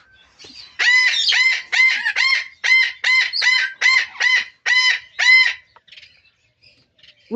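A parrot calling a run of about a dozen short, arched, ringing notes at a steady pace of about three a second, then falling quiet.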